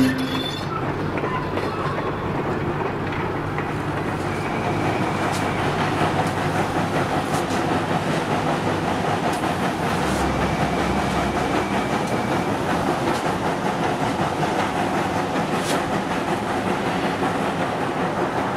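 Steam train on the move: New Hope and Ivyland 40, a 2-8-0 steam locomotive, and its coaches running, with a steady, even running noise.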